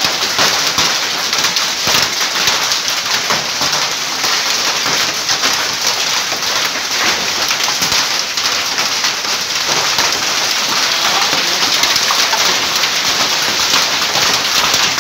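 Hailstorm: hailstones and heavy rain pelting the street and nearby surfaces, a loud, dense, steady patter of countless small hits.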